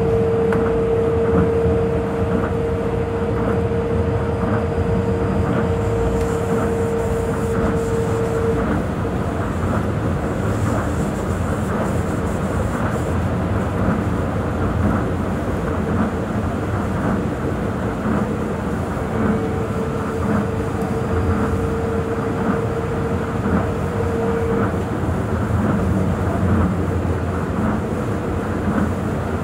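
Tokyo Monorail 2000 series train running, heard from inside the car: a steady rumble of the rubber-tyred train on its track beam, with a steady motor hum that drops out about eight seconds in and comes back twice later.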